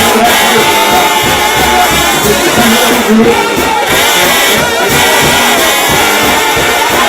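Trombone shout band playing loudly, several brass voices sounding together in a dense, continuous texture.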